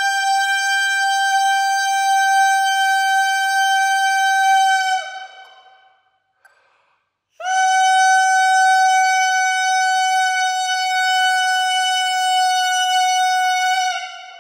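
A bassoon reed blown on its own, without the instrument, sounding long steady tones pitched between F-sharp and G. Each note is started with air alone, without the tongue. One tone ends about five seconds in, and after a short gap for breath a second tone is held until near the end.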